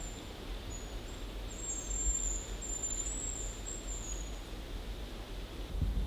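A very high, thin whistled call in the hazel grouse's pattern: several drawn-out whistles strung together over about four and a half seconds, over steady low background noise.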